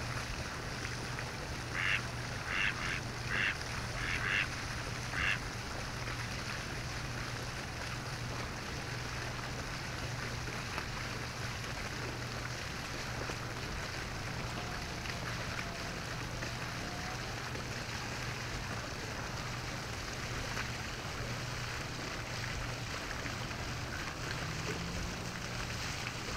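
A duck calling: six short calls in quick succession, about two seconds in, over a steady hiss and a low hum.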